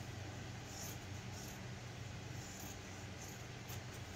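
Scissors making faint, scratchy snips through the layered cloth of a sewn pad as its seam allowance is trimmed, over a low steady hum.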